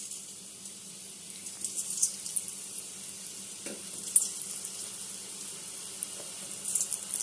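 Seedai balls of rice-flour dough deep-frying in hot oil in a steel kadai over a low flame: a steady sizzle studded with sharp crackling pops.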